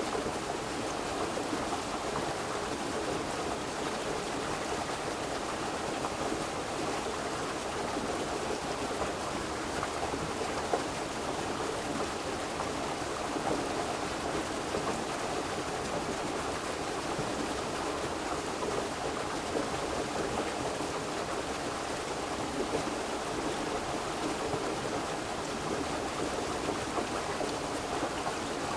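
River water flowing, a steady, even rush with no break.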